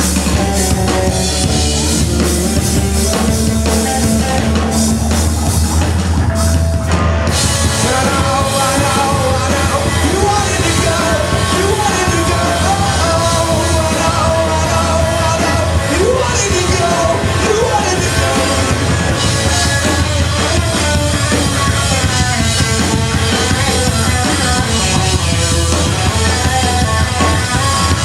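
Live rock band playing electric guitars and a drum kit, with a voice singing over the band.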